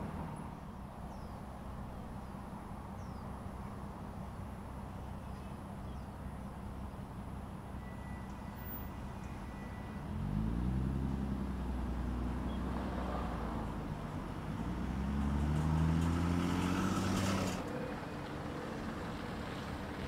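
Engine noise over a steady low hum. It comes in suddenly about halfway through, rising in pitch, then swells again with a second climbing pitch and drops away abruptly near the end.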